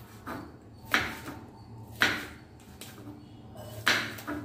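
Kitchen knife slicing okra on a wooden cutting board: three sharp knocks of the blade against the board, with a few lighter taps between.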